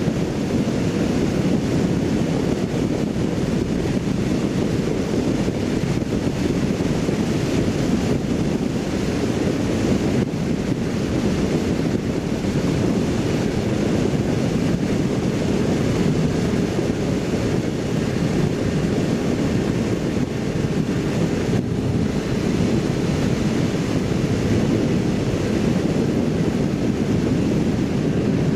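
Steady wind rush on the microphone of a riding motorcycle at speed, with the Kawasaki Z750's engine droning underneath.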